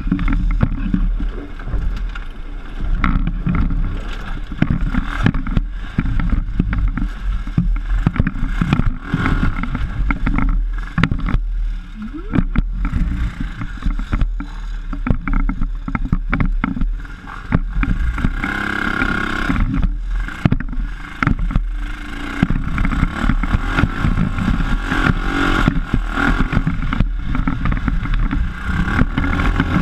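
PGO off-road buggy's engine running under way over a rough dirt track, its revs rising and falling, with frequent knocks and rattles as the chassis jolts over bumps.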